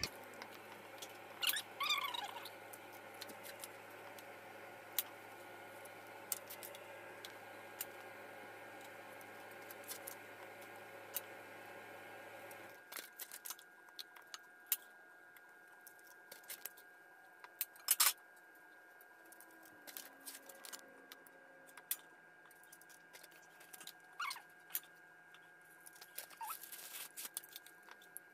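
A metal spoon scraping and clinking in a stainless steel mixing bowl of creamy filling, with soft handling of flour tortillas. There are scattered light clicks, and one sharp clink about two-thirds of the way through is the loudest. A steady low hum in the background stops a little before halfway.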